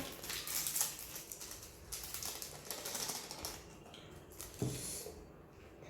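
Rapid crackling and clicking close to the microphone as food and its container are handled, with one soft thump about four and a half seconds in.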